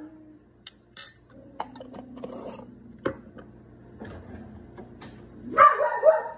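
Metal spoon clinking and scraping against a glass measuring cup as salt is spooned into water, in scattered sharp clinks. Near the end, a short loud bark-like cry.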